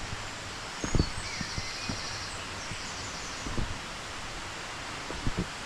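Footsteps going down outdoor steps, a few dull thuds about a second, three and a half and five seconds in, over a steady rushing outdoor background, with small birds chirping briefly.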